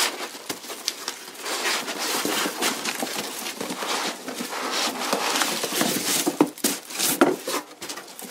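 Cardboard and crumpled packing paper rustling and scraping, with the plastic wrap on a figure box crinkling, as the box is worked out of a shipping carton; a few sharp knocks come in the second half.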